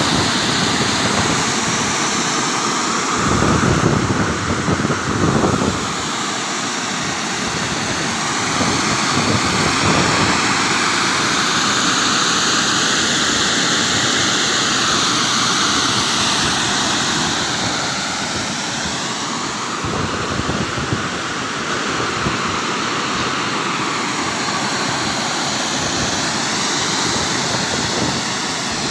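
A 2000 GPM fire water monitor discharging a wide fog spray: a loud, steady rushing hiss of water whose tone slowly shifts, with deeper rumbling surges between about three and six seconds in.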